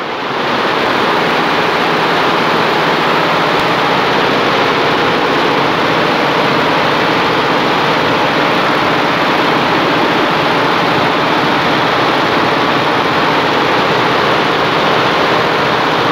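Multi-head computerised embroidery machine running, its row of needle heads stitching together in one loud, steady mechanical clatter.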